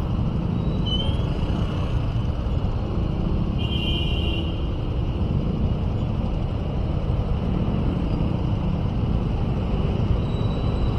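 Motorcycle and scooter engines idling in stop-and-go traffic, a steady low rumble with road noise. A brief high-pitched tone sounds about four seconds in.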